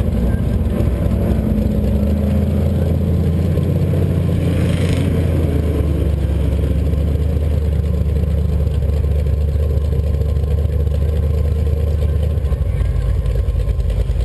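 Red push Jeep's engine running steadily as it rolls along slowly, heard close up from a camera on its bumper. A short hiss comes about five seconds in, and the engine's note changes near the end.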